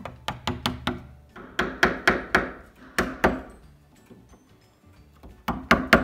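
Wooden mallet tapping a wood chisel into a door edge, in quick runs of several sharp, ringing taps, setting the outline of the mortise for a deadbolt faceplate.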